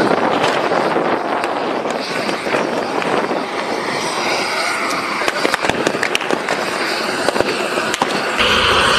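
Aftermath of an explosion: a loud, steady rushing din of a fleeing crowd, with voices shouting and a few sharp cracks scattered through it.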